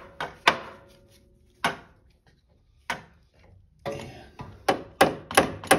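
Hammer striking a metal punch to drive a small part into its hole: a few single sharp taps, then from near the end a quick run of strikes about three a second.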